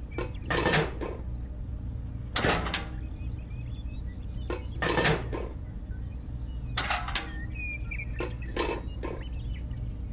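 Handmade model cement mixer and model trailer being handled and set down: a handful of short knocks and clatters of small hard parts, a second or two apart, over a steady low hum.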